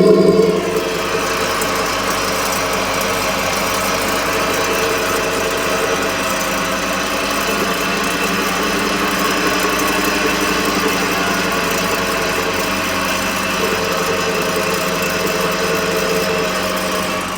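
Car running with a steady mechanical hum made of several steady tones, louder for about the first half second and then even.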